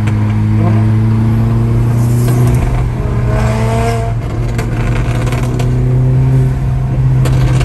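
B8 Audi S4's supercharged 3.0 V6 running loud through its exhaust on the road, a deep steady drone whose pitch rises and falls with the throttle in the middle. A few sharp exhaust pops come through, once about two seconds in and again near the end.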